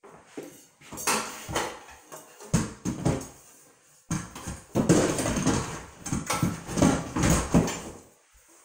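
Aluminium-framed mirror cabinet being handled and pushed into a cutout in a drywall wall: irregular knocks, rattles and scrapes of the metal cabinet and its door against the wall. It comes in short clusters at first and gets busier and louder from about four seconds in until near the end.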